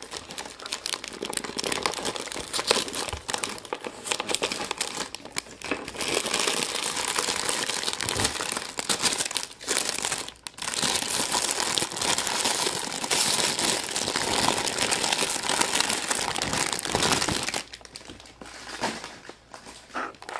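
Foil wrapper of a large chocolate egg crinkling and rustling as hands peel it off, with a few brief pauses; it dies down near the end.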